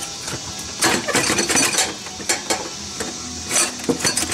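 Metal clinks and knocks in short clusters as a loosened pipe is wiggled against surrounding parts in a diesel engine bay.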